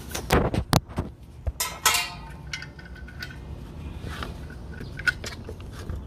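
Metal clicks and clinks of a CO2 regulator being handled and fitted onto a CO2 tank's valve: several sharp knocks in the first two seconds, then light, sparse handling ticks.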